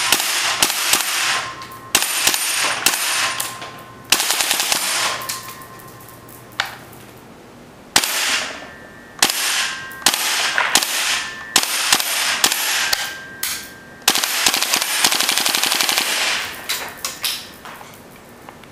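WE SCAR gas blowback airsoft rifle firing full auto in about ten rapid bursts, mostly one to two seconds long, with a single shot about a third of the way through.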